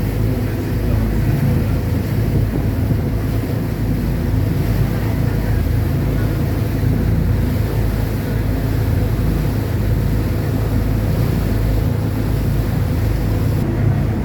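Passenger ferry under way: its engines run with a steady low drone, with wind rushing over the microphone.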